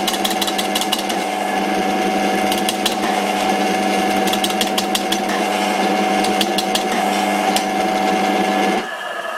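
Old Karger lathe running while a homemade bowl gouge cuts a wooden spindle: a steady machine hum with irregular sharp ticks from the cut. The cutting noise stops suddenly near the end, leaving the lathe running more quietly.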